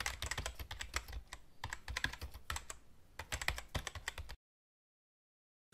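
Typing sound effect: rapid key clicks in three short runs with brief pauses between them, keeping time with on-screen text being typed out.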